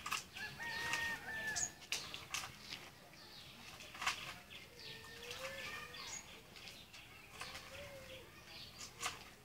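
Birds calling outdoors in short, separate calls, some higher and some lower, with scattered sharp clicks and rustles in between.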